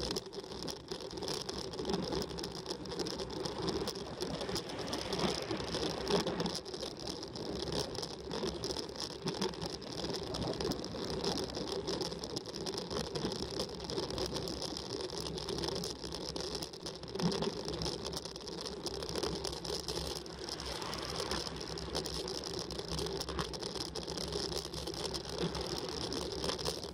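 Road bicycle being pedalled uphill at a steady cadence: an even mechanical whir from the chain and drivetrain over a low rumble of tyres on asphalt.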